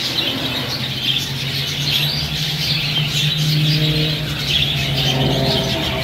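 Dense, continuous chirping of many caged small birds (lovebirds, cockatiels, canaries) over a steady low hum.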